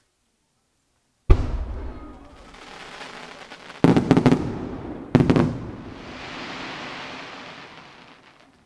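Aerial fireworks bursting: a single sharp bang about a second in with a long fading tail, a quick cluster of bangs near four seconds and another bang just after five, then a hiss that swells and fades out near the end.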